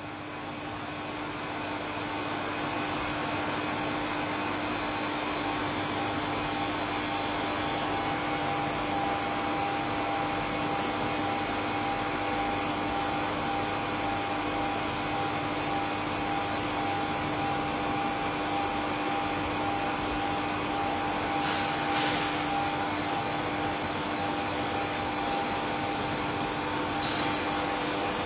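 Horror-film electric laboratory sound effect: a steady electrical hum and buzz with a few held tones, fading in over the first couple of seconds. Short crackling electric zaps break in a few times about three-quarters through and again near the end.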